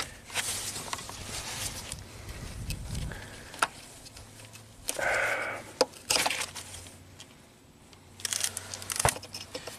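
Gloved hands working in an engine bay and unplugging the electronic throttle body's wiring connector: rustling and scraping of glove and plastic, with a few sharp clicks.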